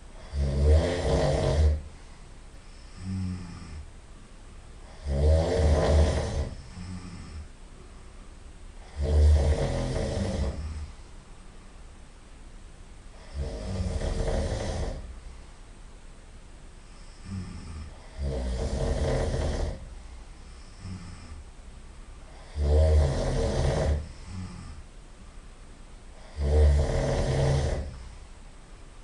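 A person snoring loudly and regularly: seven heavy snores, one about every four seconds and each lasting a second or two, with quieter breathing between them.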